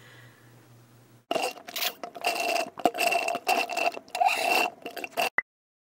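Sound effect of a drink being sucked up through a straw: an uneven run of noisy slurps lasting about four seconds, starting about a second in, followed by two short clicks.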